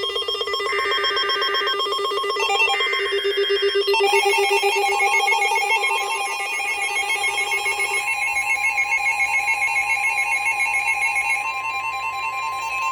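Emergency alert tones from weather radio receivers, overlapping. Two one-second bursts of SAME header data sound over a fast pulsing alarm tone. About four seconds in, another pulsing multi-tone alert joins. About eight seconds in, a steady NOAA Weather Radio warning tone near 1 kHz takes over.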